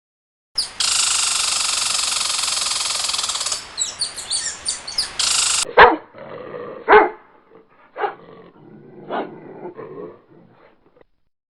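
A dog barking four times, about once a second, loud and sharp. The barks follow about five seconds of a steady rushing, hiss-like noise.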